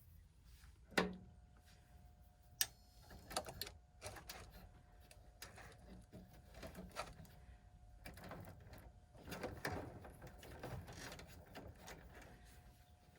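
Clicks, knocks and light rattles of hand work on a gas furnace, with a sharp click about a second in and a faint steady tone from then on.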